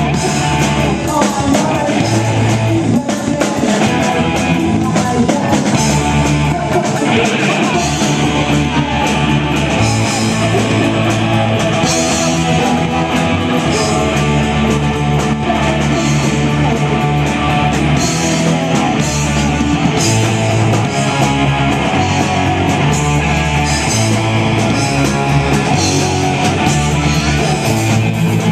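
A small rock band playing a song, led by guitar, loud and continuous.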